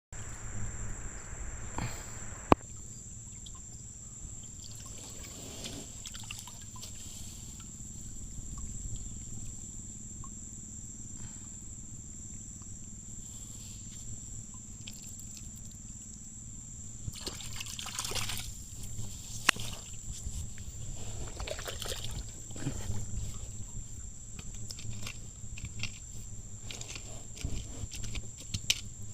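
Water trickling and sloshing, with scattered clicks and short splashy bursts over a steady low hum.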